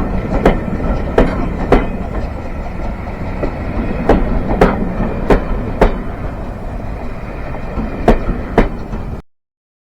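A train's wheels running over rail joints: a steady rumble with sharp clicks coming in pairs about half a second apart, before the sound cuts off suddenly about nine seconds in.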